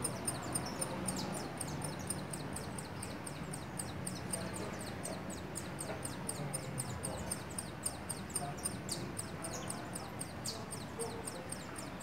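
Saffron finch nestling begging from inside its nest: a continuous run of short, high, thin calls, several a second, as the parent comes to feed it.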